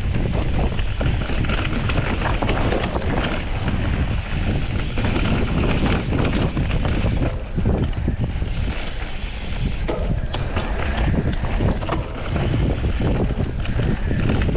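Wind buffeting the microphone of a camera on a moving electric mountain bike, a heavy steady rumble, with scattered sharp clicks and rattles from the bike on the trail.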